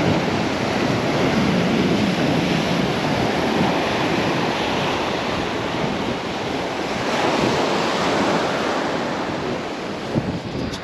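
Surf breaking on a sandy beach, a steady wash of waves, with wind buffeting the microphone.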